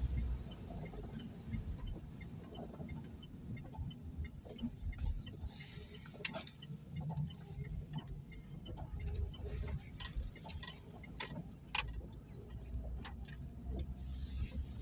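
Car cabin noise while driving on a wet road in rain: a low engine and tyre rumble with a hiss of water from the tyres. Over it runs a steady, quick ticking, with a few sharper clicks.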